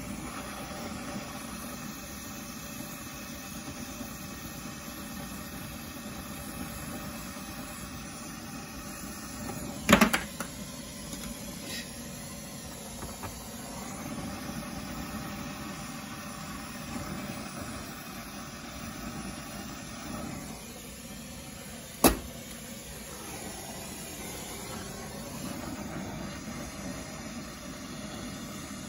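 Brazing torch flame hissing steadily on copper refrigerant tubing. Two sharp knocks cut through it, about ten seconds in and again some twelve seconds later.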